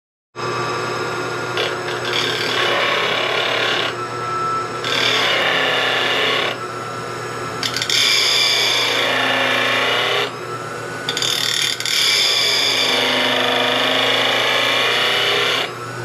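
A small motor-driven key-cutting machine, converted to a profile grinder, is grinding a profile into a steel molding knife. The motor hums steadily throughout, with four long harsh grinding passes separated by short pauses where only the hum is left.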